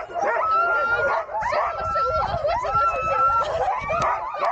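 A yard of sled dogs yipping, whining and howling all at once in a dense, unbroken chorus, with several long held howls rising above the rest.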